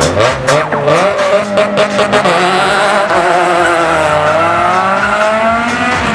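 A car engine revving hard and then held at high revs, its pitch wavering, with tyres squealing on the concrete.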